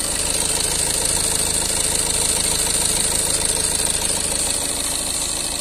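Tata Altroz's four-cylinder turbo-diesel engine idling steadily with the bonnet open, with a high hiss above the engine note.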